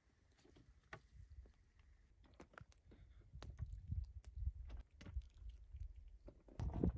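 Faint, scattered small clicks and taps over a low rumble, getting busier about two seconds in.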